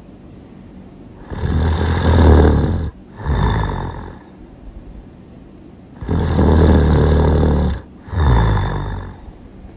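Loud human snoring: two cycles, each a long snore followed by a shorter one, with a quiet pause of about two seconds between cycles.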